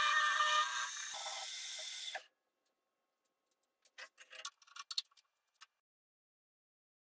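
Milling machine running, its end mill cutting a metal part held in a vise: a steady whine with several tones over a hiss, which cuts off about two seconds in. A few seconds later come a handful of short metal clicks and taps.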